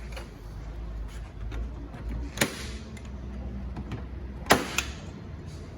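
Glue-pull dent tool pulling glue tabs off a car's quarter panel: two loud, sharp snaps about two seconds apart, the second followed quickly by a smaller one, over a low steady shop hum.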